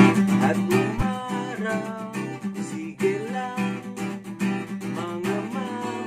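Background music led by acoustic guitar, strummed and plucked at an even pace.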